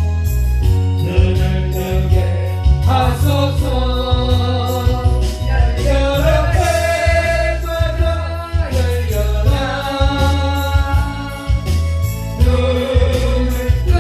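A solo voice singing a Korean gospel song in long held notes with vibrato, over an accompaniment with a strong bass line and a steady beat.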